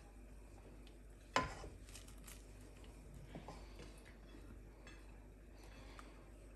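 Wooden spatula stirring a thick cheese sauce in a metal saucepan: faint scraping, with one sharp knock against the pot about a second and a half in and a few light taps after.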